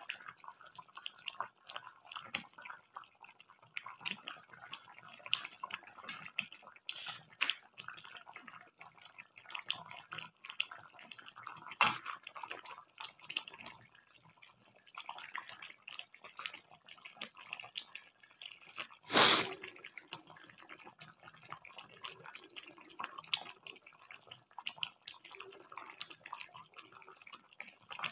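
Chicken curry gravy simmering in a pan, bubbling with many small irregular pops. There is one louder burst about two-thirds of the way through.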